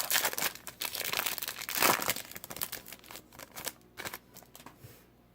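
A baseball card pack's wrapper being torn open and crinkled: dense crackling for about three seconds, then a few lighter rustles and clicks as it dies away.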